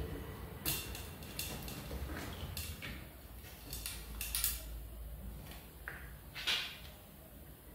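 Scattered light clicks and rattles of a steel gear cable being threaded through a Shimano 105 STI shift lever and drawn through by hand, a few ticks a second at most, the sharpest near the end.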